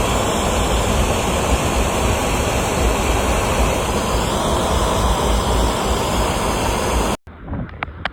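Strong blizzard wind blowing steadily and buffeting the microphone with a deep, uneven rumble. It cuts off suddenly near the end, leaving a quieter stretch with a few light knocks.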